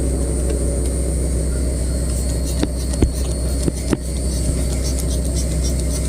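Blue Bird bus's propane-fuelled engine idling with a steady low rumble, on a bus with an exhaust leak. A few short sharp ticks come between about two and a half and four seconds in.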